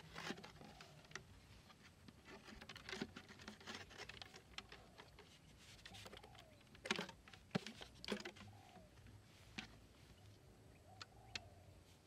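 Quiet handling noises from setting a plastic-bottle bird trap: scattered clicks and rustles from the bottle and its stake, the two loudest about seven and eight seconds in. A bird gives a soft call that rises and falls in pitch, repeating every few seconds.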